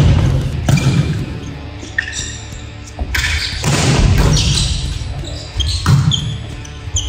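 Volleyball rally in a gymnasium hall: the ball is hit by hands several times in a row (receive, set, attack), each hit a sharp echoing slap, over background music.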